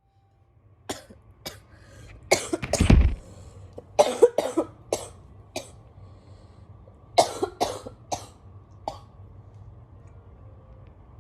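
A girl coughing from bronchitis, in several short fits of two to four coughs each. The hardest fit comes about two and a half seconds in.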